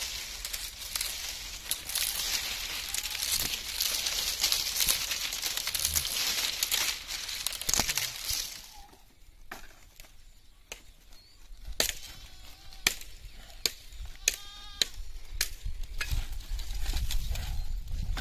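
Dry palm fronds rustling and crackling as they are pulled apart and handled. After about eight and a half seconds, dry sticks knock and clack against each other as firewood is laid out, with a short animal call about fourteen seconds in.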